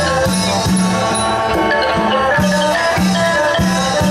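Isan pong lang folk band playing an upbeat instrumental: wooden log-xylophone notes over a steady low bass beat of about two to three notes a second.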